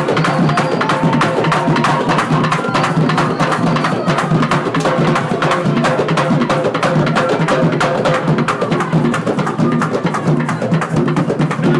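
Background music with busy, steady percussion and a pitched accompaniment.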